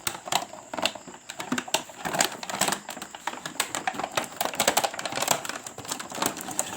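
Rapid, irregular plastic clicking and rattling from a toy cement mixer truck and its packaging being handled, several sharp clicks a second.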